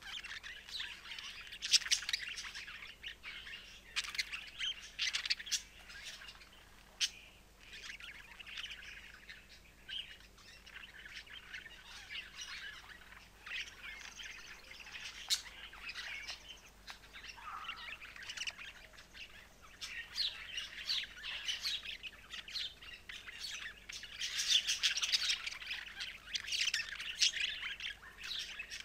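Budgerigars warbling in a continuous busy chatter of chirps, with short sharp clicks mixed in, growing louder and denser near the end.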